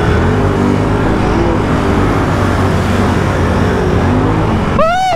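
ATV engine running under throttle while riding a dirt trail, its note drifting up and down. A voice starts right at the end.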